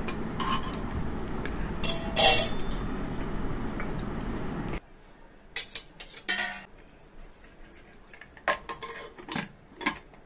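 A steel spoon scraping and clinking against a pressure cooker while minced meat is mixed in it, over a steady background hiss. About halfway the hiss cuts off and a few separate sharp metal clanks follow as the cooker's lid is fitted and closed.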